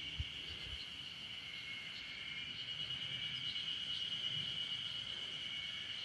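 A steady, continuous chorus of insects in summer forest, one unbroken high drone with a few faint higher calls over it. A brief low thump comes just after the start.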